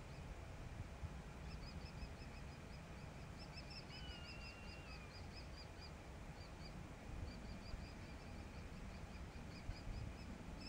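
Bird calling in fast runs of short, high, repeated notes, about five a second, in several bursts, with one longer whistled note about four seconds in: screeching from a bird in a clash between a falcon and the small birds mobbing it.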